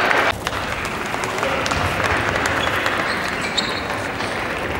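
A few sharp ticks of a celluloid table tennis ball striking the table and bats, over the steady background noise of a large sports hall.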